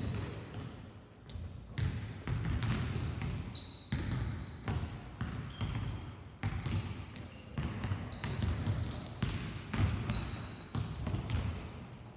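Several basketballs bouncing irregularly on a gym floor, with short high squeaks from sneakers on the court.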